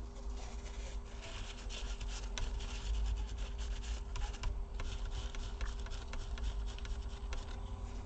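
A tissue dampened with alcohol rubbing over a laptop CPU, wiping off the old thermal paste: an uneven scratchy rubbing with many small ticks, over a steady low hum.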